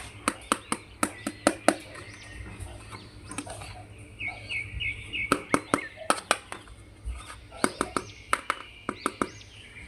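Repeated sharp clicks and taps of plastic toy figures and packaging being handled during unboxing, with a few faint high chirps about halfway through.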